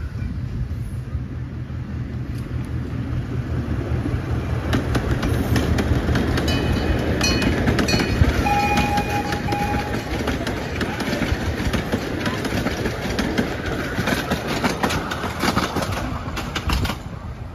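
Chance Rides C.P. Huntington miniature zoo train passing close by: the locomotive's engine hums steadily while the wheels click rapidly on the track, growing loudest as the passenger cars roll past about halfway through and easing as they move away.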